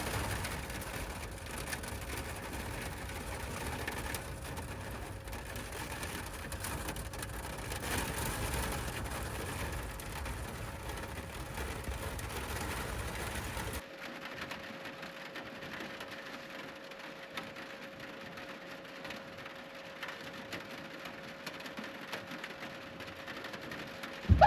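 Steady rain hiss with a low rumble under it, which drops abruptly about fourteen seconds in to a quieter, thinner hiss. A faint steady hum runs underneath throughout.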